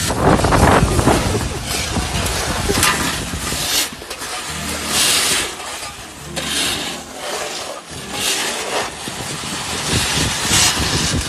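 Snow shovels, metal and plastic, scraping and pushing snow across asphalt: a series of rough scrapes, one every second or two, over a low rumble of wind on the microphone.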